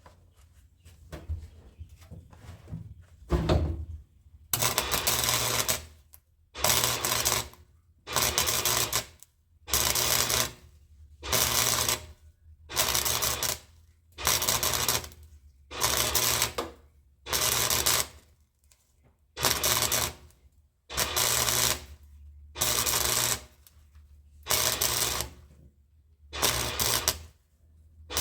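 Welder stitch-welding a sheet-metal patch panel in short bursts: about fifteen crackling welds of roughly a second each, with brief pauses between, starting a few seconds in after a few faint clicks.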